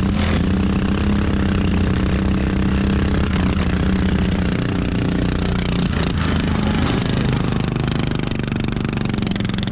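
Racing lawn mower's engine running hard at a fairly steady pitch, heard close up from the mower itself.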